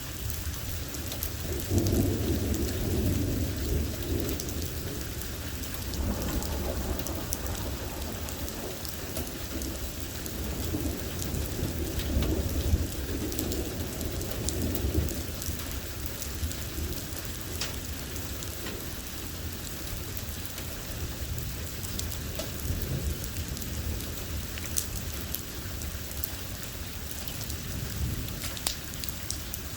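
Rain falling steadily with many sharp drop hits, under rolling thunder that swells about two seconds in and again near the middle.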